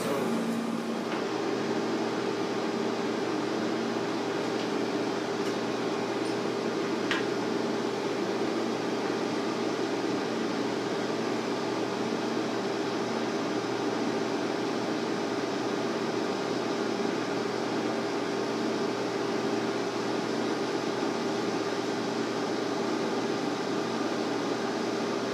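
Steady hum of cooling fans and electrical equipment, with a low steady tone running under it; a faint click about seven seconds in.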